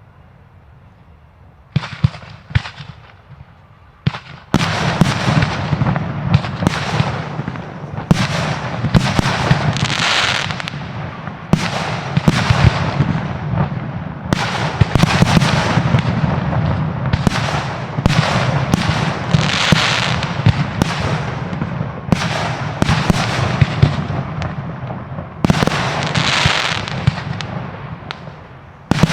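Fireworks display: a couple of single shell bursts, then from about four seconds in a dense, continuous barrage of bangs and crackling, with waves of hissing crackle every few seconds.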